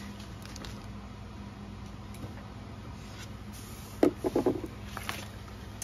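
Quiet room tone with a faint steady hum. About four seconds in, a sharp tap and a brief rustle as a hand handles a folded diamond painting canvas on a wooden table.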